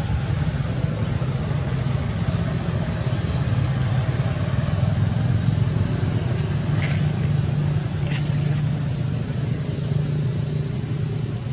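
Steady outdoor background noise: a low rumble under a constant high hiss, with two faint clicks about seven and eight seconds in.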